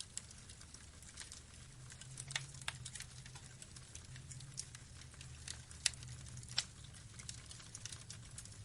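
Burning logs crackling: irregular sharp pops and snaps, the two loudest close together a little past the middle, over a faint low steady rumble.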